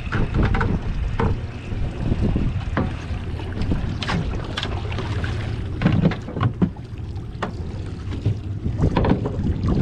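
Steady low rumble aboard a fishing boat at sea, with wind buffeting the microphone. Scattered short knocks and clicks run through it.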